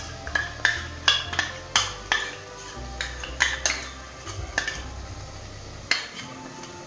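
A steel spoon clinks and scrapes against the aluminium pressure cooker as curd-and-spice masala is spooned into the pot: a dozen or so sharp, ringing clinks at an irregular pace.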